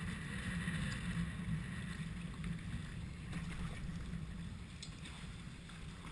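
Water sloshing and lapping around a sea kayak as it is paddled, with a low, fluttering wind rumble on the microphone.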